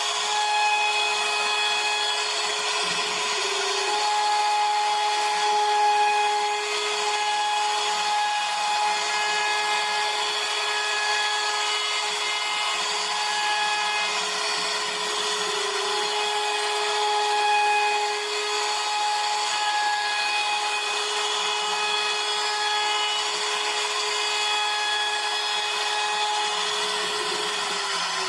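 CNC router spindle cutting wood: a steady whine over a rasping cutting noise, its pitch wavering slightly. Near the end the whine starts to drop in pitch.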